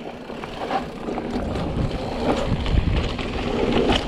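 Mountain bike riding down a rough dirt trail: a steady rush of tyre and wind noise, growing louder after about a second, with many short clicks and knocks from the bike going over the ground.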